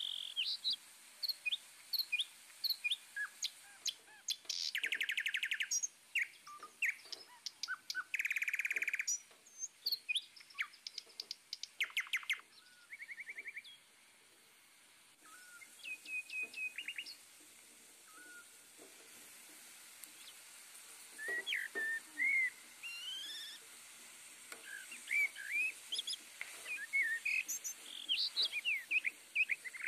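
Several small birds chirping and calling: many short rising chirps, with a few bursts of rapid buzzy trills.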